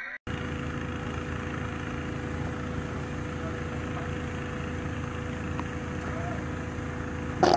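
Steady mechanical hum at an even level, with a constant tone running through it. A brief loud noise cuts in just before the end.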